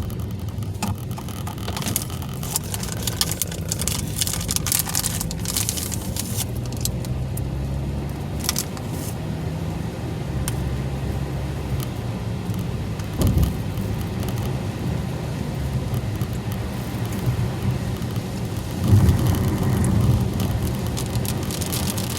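A car driving in heavy rain, heard from inside the cabin: a steady low rumble from the road and engine, with rain ticking on the car through the first several seconds. Two heavier thumps come past the middle and near the end.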